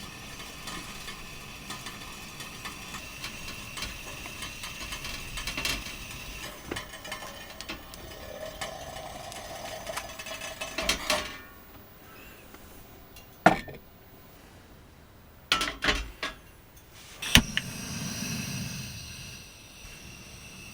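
Small clicks and clatter of objects being handled over a steady background, then after a quieter stretch several sharp knocks, some in quick pairs, and a brief low rumble near the end.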